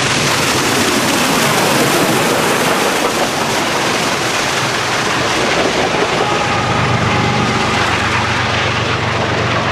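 Union Pacific Big Boy 4014, a 4-8-8-4 articulated steam locomotive, passing close at speed: a loud, steady rush of exhaust and running gear. About two-thirds of the way through, the deeper steady drone of the diesel locomotive trailing behind it joins in as it goes by.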